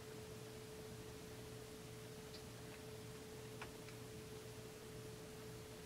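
Faint steady hum of room tone, with a few small clicks in the middle, the sharpest about three and a half seconds in, as the gasket and parts are handled on a Husqvarna 350 chainsaw crankcase.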